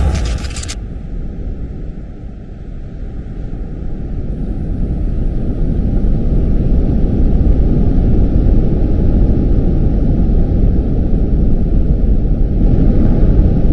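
Nuclear explosion sound effect: the crack of the blast dies away in the first second, leaving a loud, deep rumble. The rumble sinks about two seconds in, then swells back up and holds.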